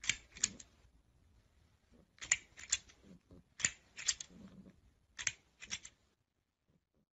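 Green toy crocodile clicking and clacking as a cat bats at it with its paw: four groups of two or three sharp clicks, about one group every second and a half.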